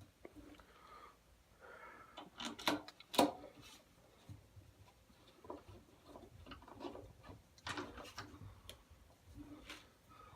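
Light clicks and knocks of a thickness planer and its parts being handled during setup, a few sharp ones about 3 seconds in and again near 8 seconds, with quiet stretches between.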